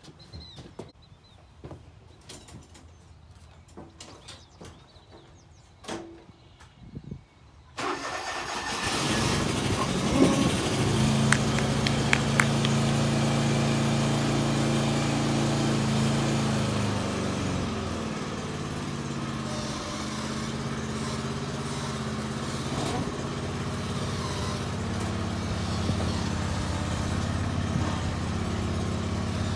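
A 1996 John Deere riding lawn mower engine starting from cold, catching suddenly after several seconds of faint clicks and knocks. It runs at a fast, steady speed for several seconds, then drops to a lower speed and keeps running steadily.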